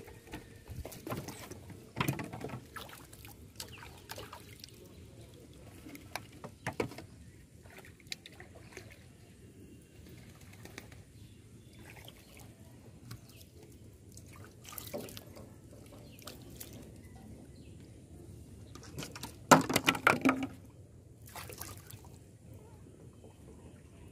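Water splashing and sloshing around a small boat, with scattered separate splashes and a louder burst of splashing about twenty seconds in.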